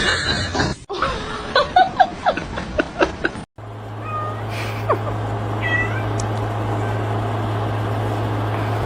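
Domestic cats meowing: a run of short, sharp meows in quick succession, then after a cut a steady low hum with a few faint, brief meows.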